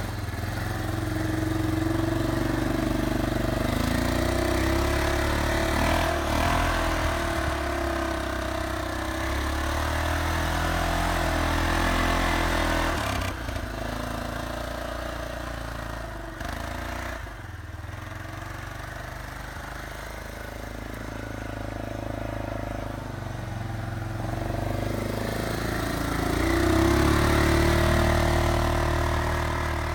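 ATV engine running as the quad is ridden through deep snow, its pitch rising and falling with the throttle. Louder at first, it fades in the middle as the machine moves off, then grows loudest again near the end as it comes back close.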